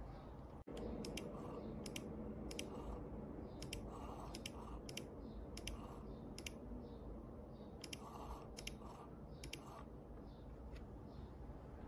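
Light, sharp clicks, singly and in quick pairs at irregular intervals, over a steady low hum.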